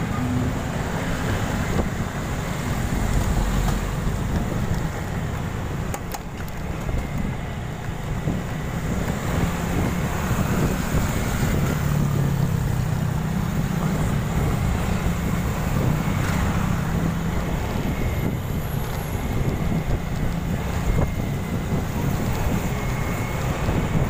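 Wind buffeting the phone's microphone while riding a motorcycle, with the motorcycle's engine and road noise running steadily underneath.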